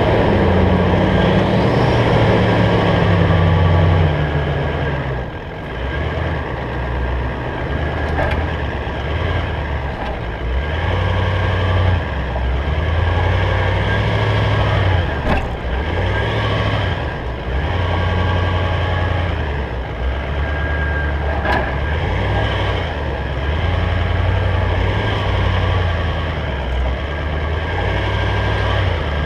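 Four-wheel-drive engine working at low speed up a rutted dirt track, its revs dropping over the first few seconds, then rising and easing every second or two as it climbs over the ruts. A couple of sharp knocks come through around the middle.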